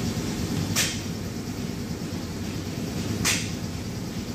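Two short swishes about two and a half seconds apart, from the packaging of a new steering column assembly being handled during unboxing, over a steady low rumble.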